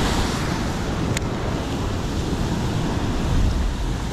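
Ocean surf churning against a rocky shoreline, a steady rush of breaking water, with wind rumbling on the microphone.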